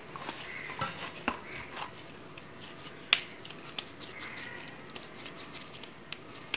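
Soft dough being kneaded by hand in a steel plate: quiet handling of the dough with a few sharp clicks and taps against the steel, the loudest about three seconds in.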